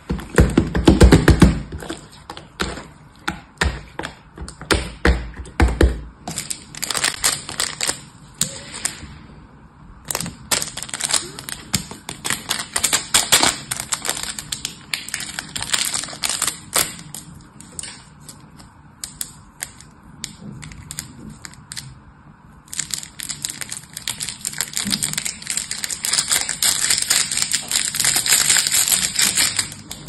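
Slime mixed with small foam beads being squeezed and kneaded by hand, making wet squelches and crunchy crackling pops, heaviest in the first six seconds. After that come long runs of dense, fine crackling, with a pause of a second or so near the middle.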